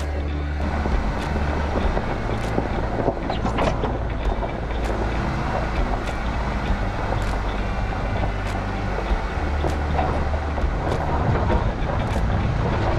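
Jeep driving slowly on a rough dirt road: steady engine and tyre-on-gravel noise with short rattling clicks about every second and a bit. Background music sits underneath.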